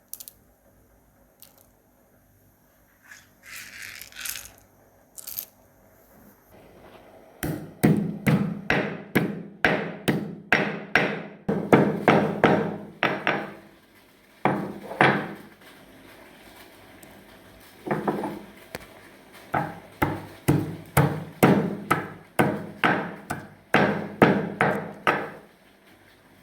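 Pestle pounding in a mortar to crush spices for masala tea: sharp, even strikes about two to three a second, in runs broken by two short pauses.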